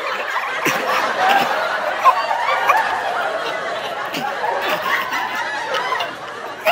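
An audience snickering and laughing, many voices overlapping in a dense, steady mass.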